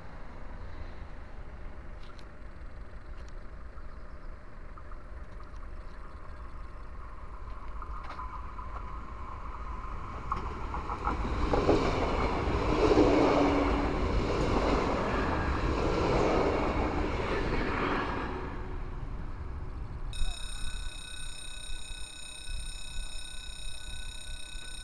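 Double-deck electric regional train passing close by at speed: the rumble and rattle of its wheels on the rails builds from about ten seconds in, is loudest for several seconds, then fades. Near the end a steady electronic warning tone of several pitches starts, the ringing of a level crossing.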